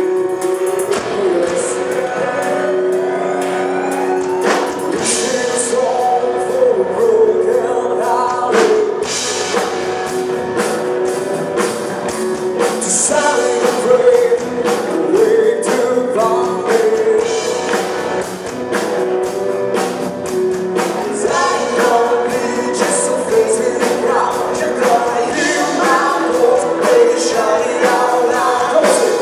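Live rock band playing with a male lead singer: electric guitars, bass, keyboard and a drum kit with cymbal crashes, the vocal melody carried over a steady beat. A sound rises in pitch over the first few seconds.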